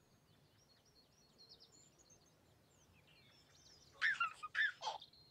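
Faint birdsong, quick high chirps and twitters, then about four seconds in a baby laughs in a few loud bursts, each falling in pitch.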